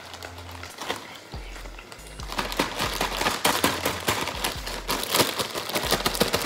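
Plastic zip-top bag crinkling as it is handled and shaken to coat cheese sticks in flour, a dense crackle that grows busier and louder from about two seconds in.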